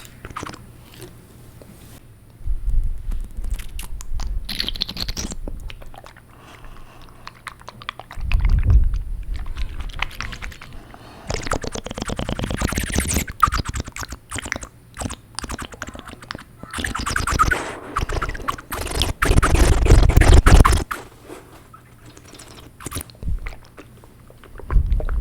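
Close-miked wet mouth sounds made with a mouthful of water: swishing and bubbling with rapid tongue clicks and smacks. They come in several bursts separated by short pauses, some with a deep rumble.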